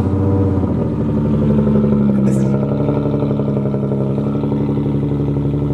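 Infiniti Q50's 3.7-litre V6 with its muffler deleted, just cold-started: the revs flare for the first second, then settle into a steady, loud idle through the open exhaust.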